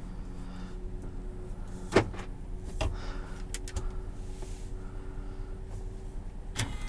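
Cabin of a 2018 Chevrolet Suburban with its 5.3-litre V8 idling as a low steady hum, broken by a few sharp clicks from the column shifter and dashboard buttons: one about two seconds in, a quick cluster a little later, and another near the end.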